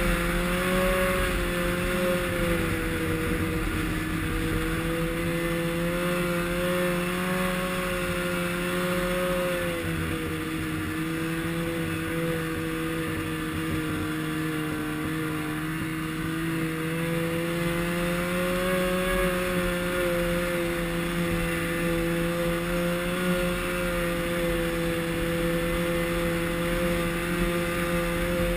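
Snowmobile engine running steadily while riding along a trail, heard close up from the handlebars. Its pitch sags a little about ten seconds in and climbs back a few seconds later as the throttle eases and picks up again.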